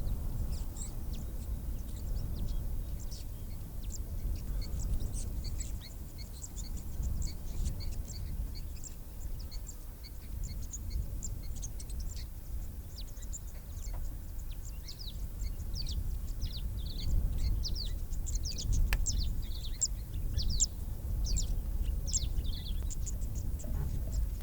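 Many small birds chirping and twittering in quick, high notes, growing busier in the second half, over a steady low rumble.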